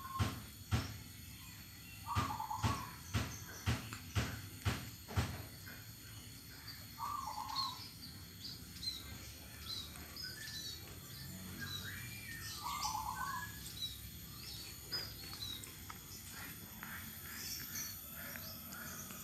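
Caged perkutut (zebra doves) cooing in short low phrases, three times about five seconds apart, while other small birds chirp higher up. A run of sharp knocks comes in the first five seconds.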